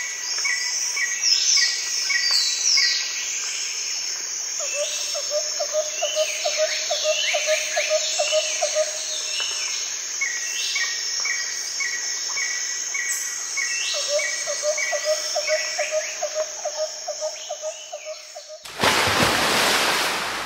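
Several songbirds chirping and singing together, with a run of short repeated notes and a lower pulsing trill that comes in twice. Near the end a loud burst of rushing noise cuts in for a second or two.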